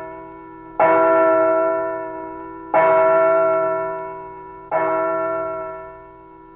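A bell tolling, struck three times about two seconds apart, each strike ringing out and slowly fading before the next.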